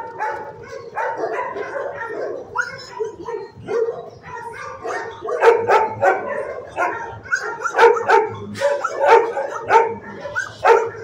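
Dogs in shelter kennels barking repeatedly, the barks coming thicker and louder from about five seconds in.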